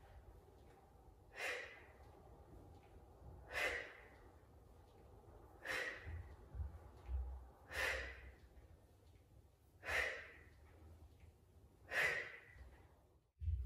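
A woman breathing hard during bodyweight squats: six short, faint breaths out, one about every two seconds in time with the reps.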